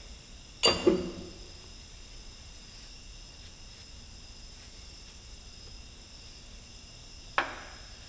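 Two sharp metallic clanks, each with a brief ring, one just under a second in and one near the end, as a hammer and small tools are handled against the dozer's steel. Between them a faint steady high-pitched whine.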